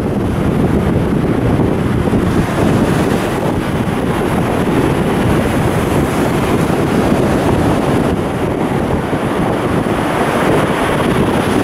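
Beach wind blowing across the microphone in a steady, unbroken rushing rumble.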